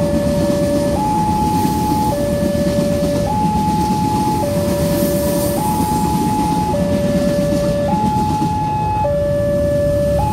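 Railway level-crossing warning alarm sounding a two-tone signal, alternating high and low, each tone held about a second, over the rumble of a passing KRL electric commuter train.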